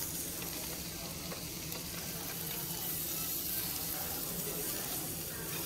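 Raw pork slices sizzling on a hot domed barbecue-hotpot grill, a steady frying hiss as more slices are laid on.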